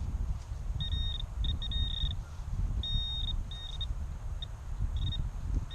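Metal detector beeping over a target: short high-pitched tones of uneven length, coming on and off every half second or so as the coil passes the spot, over a low rumble.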